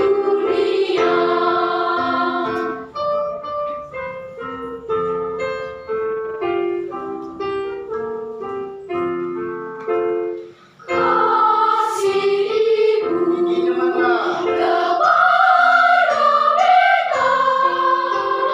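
Children's choir singing with piano accompaniment. The voices drop out about three seconds in for a piano passage of separate notes, then the choir comes back in about eleven seconds in and sings on.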